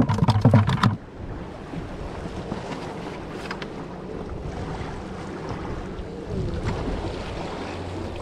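Steady wind buffeting the microphone, with waves washing against jetty rocks underneath; the wind swells a little about six seconds in.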